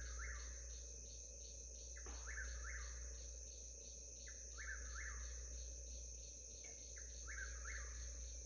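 Whip-poor-will repeating its three-note call about every two seconds, over a steady background of crickets and insects chirping in quick pulses.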